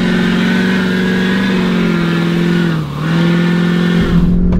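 Lifted Ford F-350 pickup's engine held at high revs as the truck, on duct-tape tires, spins its wheels stuck in soft mud. The revs dip briefly about three seconds in, then climb back. Near the end the engine is heard from inside the cab.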